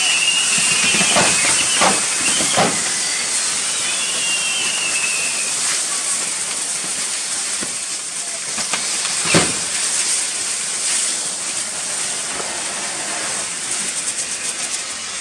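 Fireworks burning on a pyrotechnic figure: a steady hiss of spraying sparks, with falling whistles in the first few seconds and again around five seconds in, and a few sharp pops, the loudest about nine seconds in.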